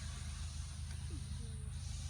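Steady low rumble of sounds from a horse's chest heard through a stethoscope during auscultation, with no distinct heartbeats standing out.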